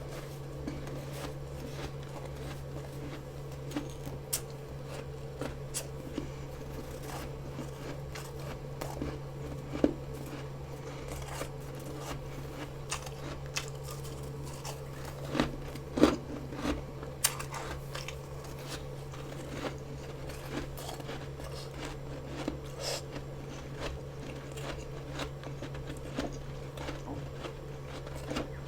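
Biting and chewing of soft, fresh freezer frost: scattered crisp crunches and crackles, the loudest about ten and sixteen seconds in, over a steady low hum.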